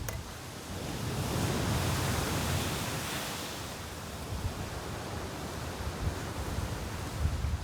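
Sea surf washing onto the beach, one wave swelling about a second in and slowly fading, with strong wind gusting against the microphone.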